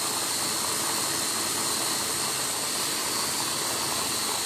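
Electric mini food chopper running steadily with its push-down top held, processing chocolate ganache: an even motor whine over a rushing noise with no change in speed.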